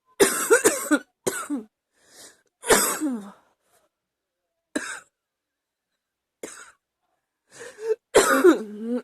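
A woman's chest cough, coming in repeated bursts: a quick run of coughs at the start, single coughs spaced out in the middle, and another hard run near the end.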